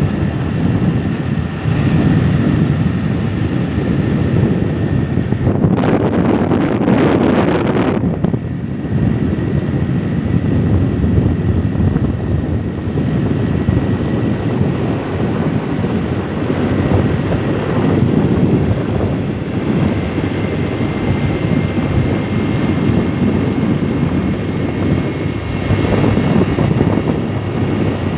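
Wind rushing over the microphone of a moving motorcycle, over steady engine and road noise, with a louder rush for about two seconds around six seconds in.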